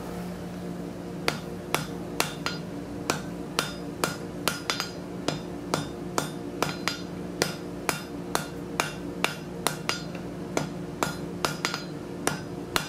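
Hand hammer striking white-hot steel on an anvil, forge welding the collared joint of a branching scroll: blows begin about a second in and go on at roughly two a second, unevenly spaced. A steady hum runs underneath.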